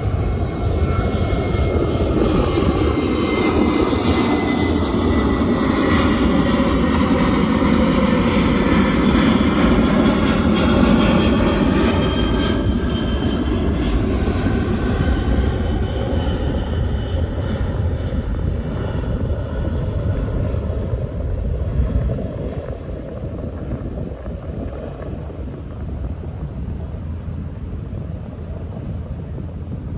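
Airliner flying over, a rushing engine noise with a whine that slowly falls in pitch. It is loudest about a third of the way in, then fades, leaving wind rumble on the microphone.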